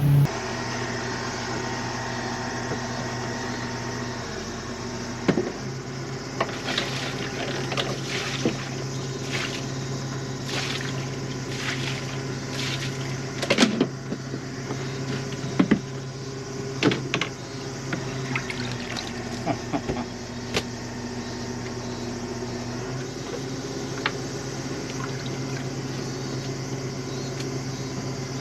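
Water running and splashing over a steady low hum, with scattered knocks and clatter.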